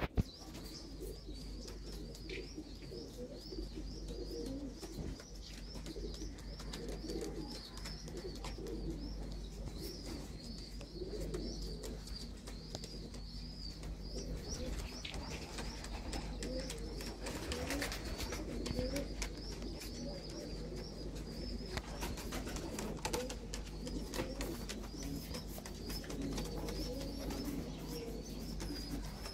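Domestic pigeons cooing over and over, low rolling coos, with a steady high chirping running behind them.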